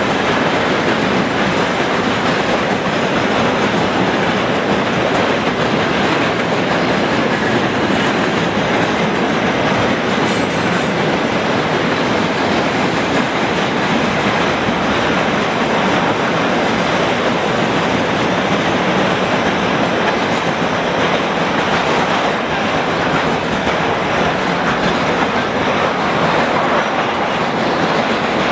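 Freight train rolling past at speed: a steady rumble of wagon wheels on the rails with a clattering clickety-clack.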